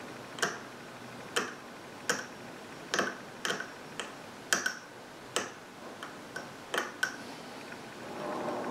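About a dozen sharp, irregular clicks as a small knife blade works the ends of fine speaker wires to strip their insulation. A soft rustle of handling comes near the end.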